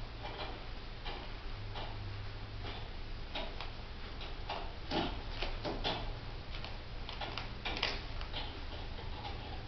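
Jolly Jumper doorway baby bouncer ticking and clicking as a baby bounces in it, in an uneven run of about one to three sharp clicks a second.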